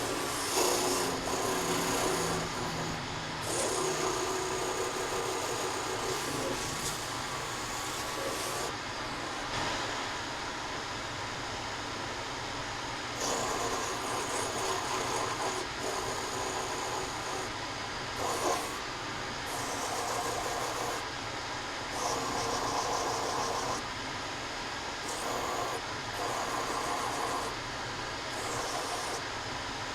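A woodworking power tool running in repeated on-and-off bursts of one to a few seconds, each with a steady tone, over a continuous background machine noise.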